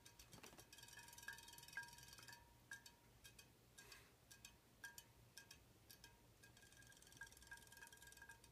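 Faint, fast, irregular mechanical clicking and ticking, typical of a small battery-powered robotic fish toy's motor and tail mechanism.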